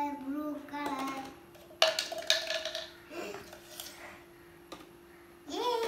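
A young child vocalizing in a sing-song voice, with a sharp plastic click about two seconds in as a ring goes onto the plastic ring-stacking toy; the voice comes back near the end.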